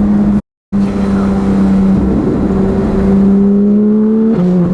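Porsche 991.2 GT3's naturally aspirated flat-six through a full Fi exhaust, running at steady mid revs under way. The pitch creeps up, then drops suddenly near the end as at an upshift; the sound cuts out completely for a moment about half a second in.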